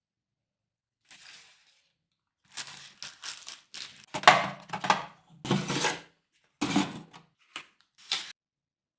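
Product packaging being handled and opened: a run of short rustling, scraping and tearing noises with dull knocks, loudest from about four to six seconds in.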